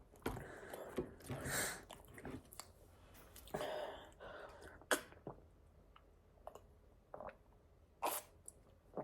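A person chewing and biting pizza close to the microphone: irregular mouth sounds with a few sharp clicks.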